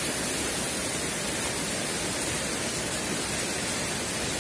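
Steady rushing noise of a rocky stream's flowing water.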